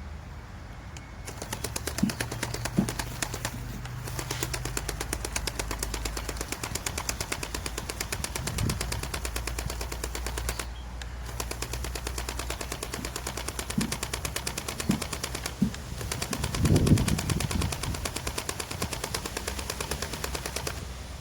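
Huina 1570 RC toy excavator's electric gear motors running with a fast, even clatter, pausing briefly a few times, with several low thumps as it digs into soil.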